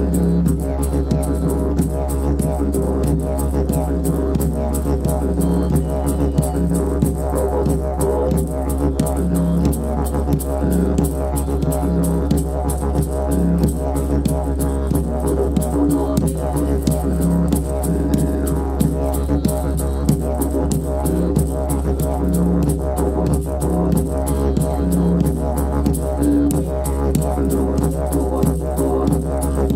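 Didgeridoo playing a steady, low drone whose overtones pulse in a repeating rhythm, over a hand shaker rattling in a quick, even beat.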